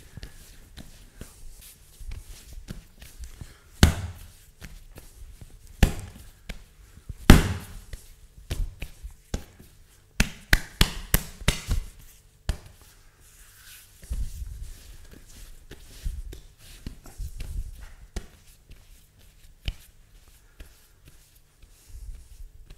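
Hands kneading a firm rye bread dough on a floured countertop: irregular thumps and slaps, with a quick run of sharp slaps about ten to twelve seconds in as the dough is worked between the palms.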